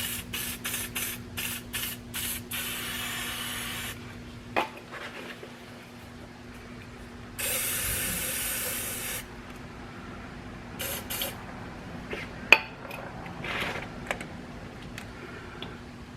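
Aerosol can of multi-purpose lubricant spraying: a quick run of short bursts, then two longer sprays of a second or two each, and a couple more short bursts. A single sharp click comes late on.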